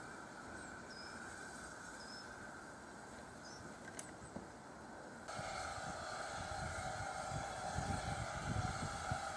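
SER O1 class 0-6-0 steam locomotive No. 65 approaching at walking pace: a steady drone from the engine that jumps suddenly louder about five seconds in, with low rumbling near the end as it rolls over the points. A few faint, high bird chirps in the first seconds.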